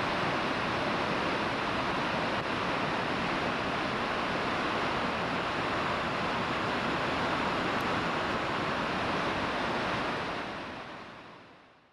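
Steady rush of river water tumbling over a weir, fading out over the last two seconds.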